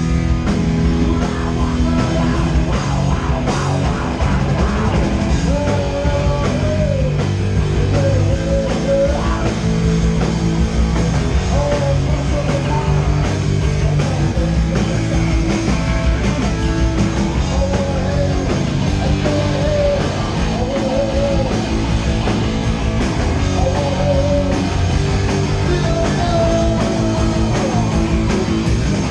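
Punk rock band playing live and loud: distorted electric guitars, bass and drum kit, with a singer shouting into a microphone.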